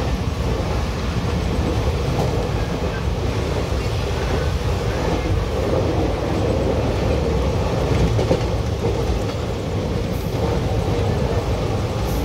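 Indian Railways ICF passenger coach running along the track, heard from inside the coach: a steady, unbroken noise of wheels on rails and the running gear, strongest in the low end.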